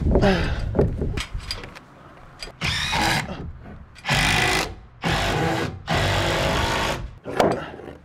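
A handheld power tool run in about four short bursts of under a second each, used on a wooden ridge beam to work it into place.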